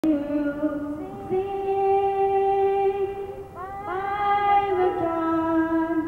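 A girl singing solo into a microphone, holding long sustained notes, with a slide up into a new held note about a second in and again about three and a half seconds in.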